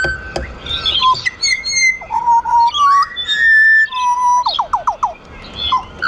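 Pied butcherbirds singing. Clear whistled notes are held on one pitch, with a step up about three seconds in and a quick run of five falling notes near the end. Short high chirps overlap the song.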